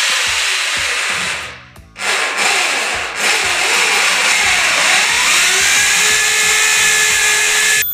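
Corded electric drill set to vibration (hammer) mode, boring a hole into the wall. It runs in two long stretches with a brief pause about a second and a half in. Its pitch dips and comes back up around the middle of the second stretch, and the drill stops at the very end.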